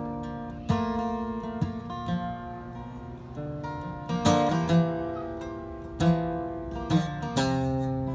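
Steel-string acoustic guitar played solo without singing: chords struck about once a second and left to ring, with a few notes sliding in pitch between them.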